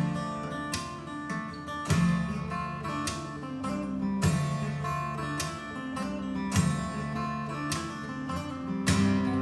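Acoustic guitar music played back through a hi-fi system's loudspeakers, with strummed and plucked chords striking about once a second.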